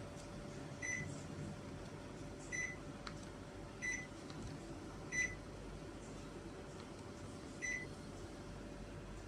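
Panasonic CS-KC5HKJ air conditioner's indoor unit beeping as it receives remote-control commands: five short single beeps at irregular intervals over the steady hum of the running unit.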